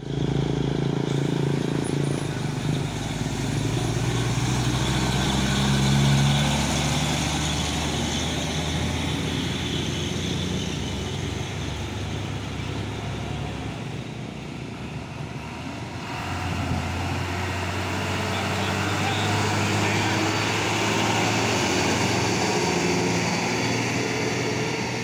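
Heavy diesel trucks and motorcycles passing along a road, their engines running steadily, loudest about six seconds in. Near the end a truck towing a loaded trailer goes by close.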